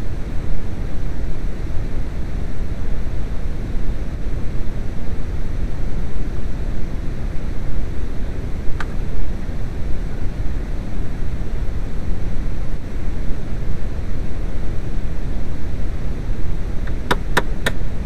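Steady low rumbling noise, with a single sharp tap about halfway through and a quick run of four sharp taps near the end.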